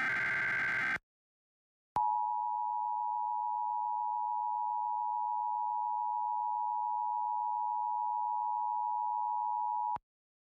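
The end of an Emergency Alert System SAME header, a short digital data burst, about a second in; then, after a second of silence, the EAS two-tone attention signal (853 and 960 Hz together) sounds steadily for about eight seconds and cuts off. Together they announce an EAS alert, here a required monthly test.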